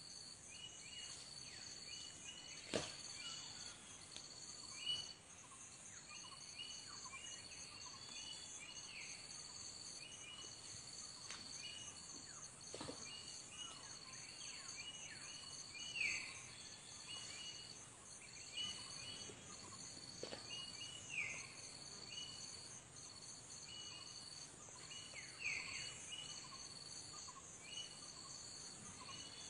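Forest ambience: insects shrilling in a steady chorus of evenly repeated pulses, with birds giving many short falling chirps. A few sharp knocks stand out a handful of times.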